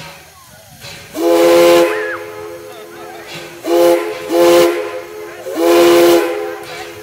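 Steam whistle of the Heisler No. 6 geared steam locomotive blowing four blasts: a long one, two short ones close together, then another long one. Each blast sounds several notes at once, with a hiss of steam around it.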